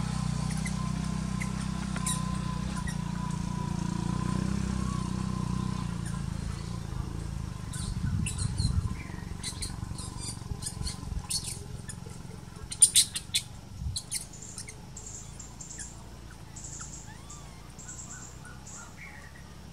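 Birds chirping in the trees: scattered short, high chirps, busiest about halfway through, over a low rumble that dies away after the first several seconds.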